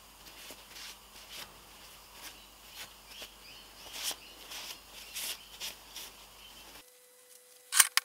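Cloth rag rubbing and wiping a small steel bracket and sheet-metal cover: short, irregular scuffing and scraping strokes. Near the end the background drops out and a loud sharp click follows.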